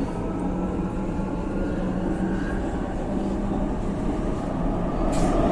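Subway train running: a steady rumble with a held low hum, getting a little louder toward the end.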